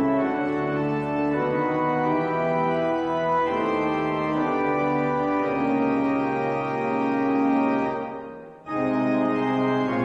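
Church organ playing slow, sustained chords that change every second or so. It briefly dies away near the end and comes back abruptly.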